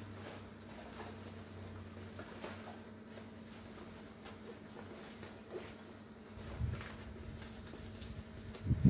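Fabric of a size XS Under Armour duffel bag rustling and its straps shifting as it is handled and folded, with faint scattered clicks over a steady low hum. A low thump near the end is the loudest sound.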